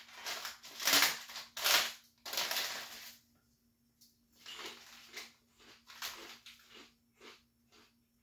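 Crinkling of a foil potato chip bag being handled and opened, then crunchy chewing of kettle-style potato chips, with short crunches about two to three a second.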